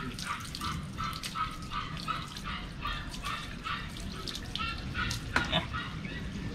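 A small puppy whimpering in short repeated whines, about three a second, while water from a garden hose spray nozzle runs over it and splashes on wet concrete.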